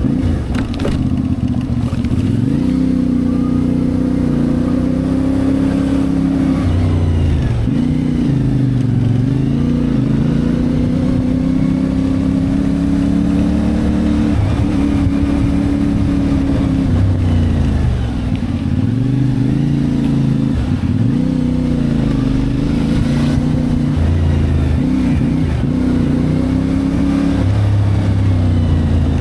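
CFMoto 450MT parallel-twin engine under way, heard from the bike itself. The engine note holds or climbs, then drops sharply and builds again several times as the rider eases off and gets back on the throttle.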